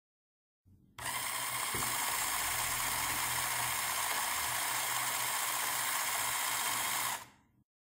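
A Lego Powered Up motor running a Lego Technic chain-and-sprocket drive, spinning the wheel with a steady high whirr. It starts about a second in and stops near the end.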